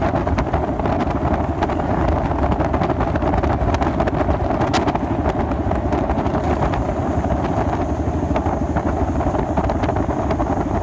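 Steady wind rush on the microphone over a running motorcycle and road noise while riding along.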